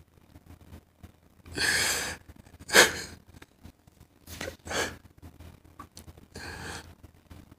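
A man crying: about five shaky, breathy sobs and sniffs, the sharpest and loudest about three seconds in.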